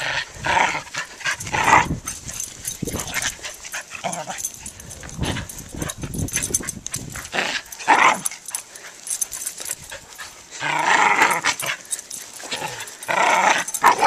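A corgi and a Pomeranian puppy at play, giving short barks and yips in bursts every few seconds. The longest run comes about eleven seconds in.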